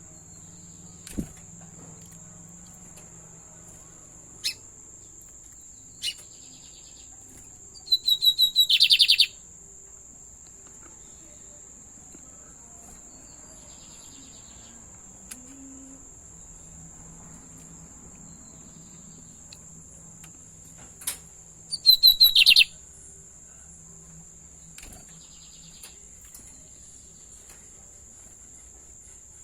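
Lined seedeater (bigodinho) singing: two short bursts of rapid repeated notes, about eight seconds in and again about twenty-two seconds in, with a few single chirps between. A steady high tone runs underneath throughout.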